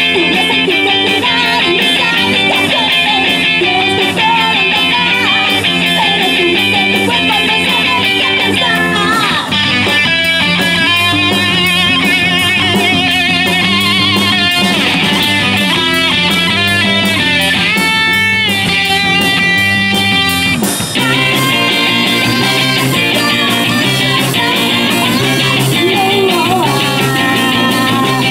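Live rock band playing through amplifiers: electric guitar, bass guitar and drum kit. About 21 seconds in, the song moves into a new section with a deeper bass line.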